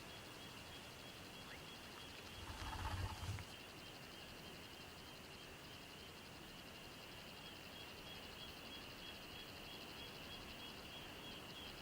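Faint, steady high-pitched trilling of a frog or insect chorus, with a brief low rumble about three seconds in.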